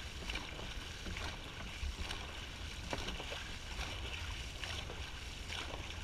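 Dragon boat paddles stroking through the water in a steady rhythm, about one stroke a second, over the continuous rush of water along the moving hull and a low rumble.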